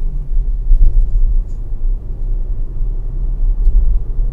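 Ford Focus Mk1 driving, heard from inside the cabin: a steady, loud low rumble of engine and road noise. The engine still has the misfire that new HT leads and spark plugs have not cured, which the owner puts down to the ignition coil.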